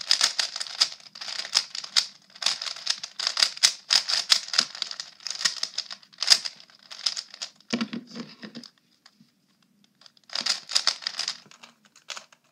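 Plastic stickerless 3x3 speed cube being turned fast by hand: rapid flurries of clicking and clacking as the layers snap round. The clicking stops for about a second and a half roughly two-thirds through, then comes back in one more quick burst and a few last turns.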